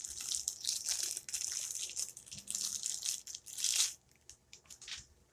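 Plastic action-figure packaging crinkling and being crushed in the hands, dense for about four seconds, then a few light clicks.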